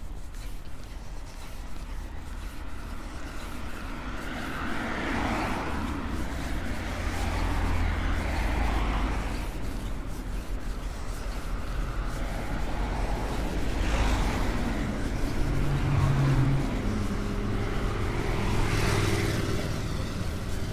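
Road traffic: a few cars passing one after another, each swelling and fading. A motorcycle engine comes closer in the last few seconds.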